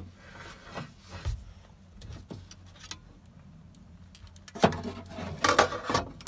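A steel repair strip and locking pliers being handled and clamped against a Classic Mini's steel cross member. There are scattered light clicks, then a cluster of louder metallic clanks and scrapes near the end.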